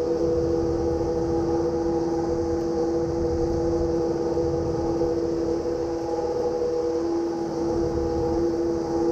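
A machine running steadily at constant speed: an even, unchanging hum of several pitched tones over a low rumble.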